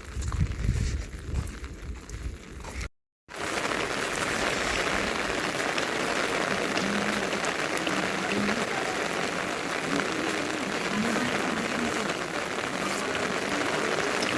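Steady rain falling, an even hiss that starts after a brief cut about three seconds in. Before the cut there are a few uneven low sounds.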